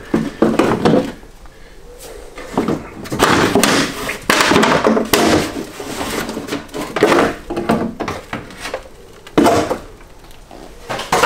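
Front wheel arch liner of a BMW E30 being worked loose and pulled out of the wheel well: irregular scraping and rustling with scattered knocks, and a sharper knock near the end.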